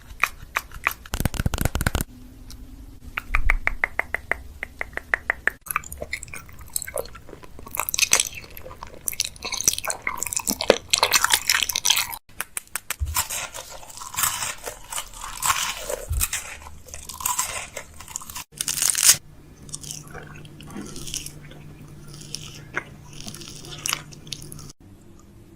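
Close-miked handling sounds: a string of clicks, taps and crunchy crackles from items and containers being handled, with a quick rattle of rapid taps a few seconds in.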